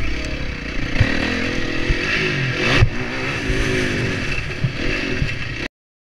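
Motocross bike engine revving up and falling back again and again as it is ridden along a dirt track, with a sharp knock about three seconds in. The sound cuts off suddenly near the end.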